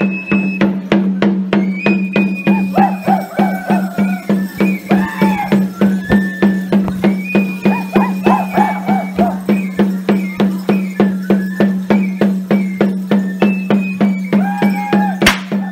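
Traditional folk music: a high melody with bending notes over a steady beat of about three strikes a second and a low steady drone. One sharp crack comes just before the end.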